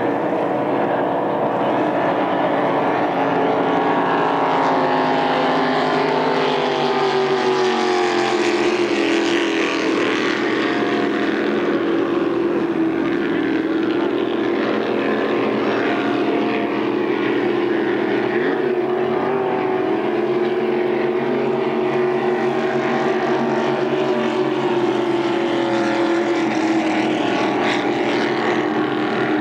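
Engines of small racing hydroplanes running hard across the water, a steady loud drone whose pitch sinks slowly and then climbs again as the boats pass.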